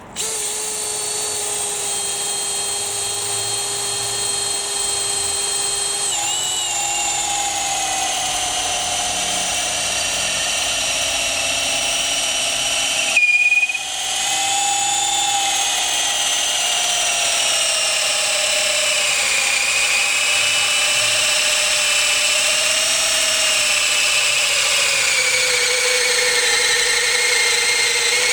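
Makita XPH06 18V cordless drill in gear 2 driving a 12 mm by 500 mm auger bit into treated pine. The motor whine sinks slowly in pitch as the bit bores deeper, with a brief stop and restart about halfway through.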